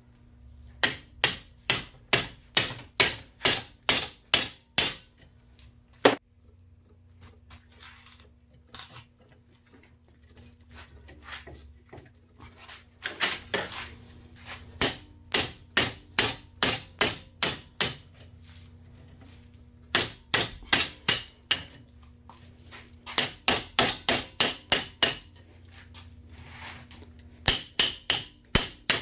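Hammer blows on metal in quick runs of several strikes, about two to three a second, with pauses between runs and one single heavy blow about six seconds in. This is typical of driving a pointed steel tool to knock copper windings out of an electric motor.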